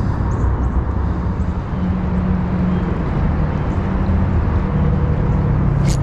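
Steady low rumble of vehicle traffic, with a faint engine hum that drops slightly in pitch about four seconds in.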